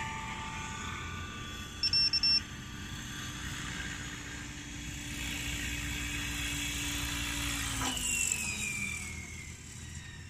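Radio-controlled model helicopter's rotor and motor running steadily as it comes in to land. About eight seconds in the pitch falls away as the rotor spools down on the ground. A quick run of high electronic beeps about two seconds in is the loudest sound.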